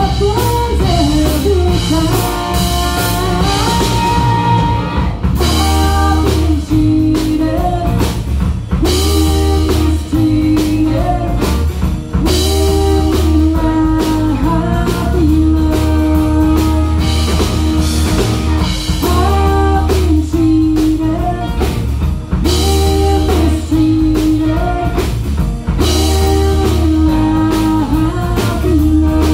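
Live rock band: a woman singing lead over electric guitar, electric bass and a drum kit, playing at full volume with a steady beat.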